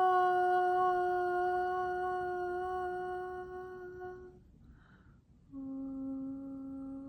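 A woman's voice sound toning: she hums one long steady note, pauses briefly, then holds a second, lower note.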